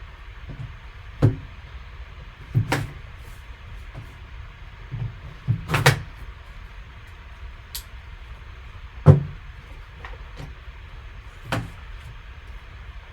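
A trading-card box and its packaging being handled and opened by hand: a few separate knocks and short rustles of cardboard and plastic, the loudest about nine seconds in, over a low steady hum.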